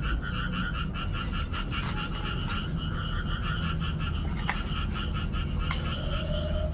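A frog calling in a continuous rapid pulsing trill, with a few sharp clicks over it.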